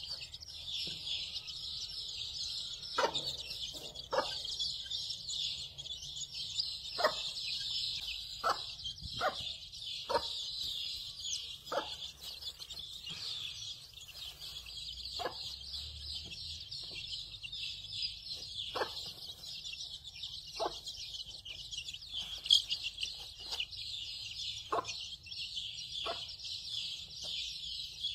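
A brood of newly hatched chicks peeping in a continuous high chorus. Over it, the broody mother hen gives short low clucks at irregular spacing, every second or two.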